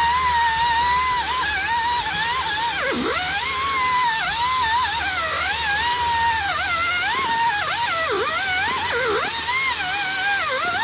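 Angle grinder with a surface-cleaning disc (a 'whizzy wheel') grinding rust off a brake rotor and hub mounting surface. Its high whine keeps dipping sharply in pitch and recovering as the disc bogs against the metal.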